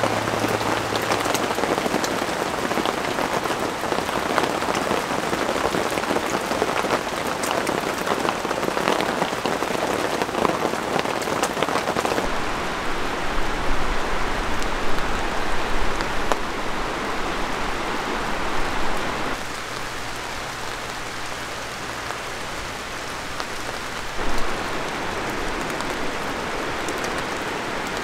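Light rain falling, a dense hiss of many small drop ticks. The sound changes abruptly about 12 seconds in and again about 19 seconds in.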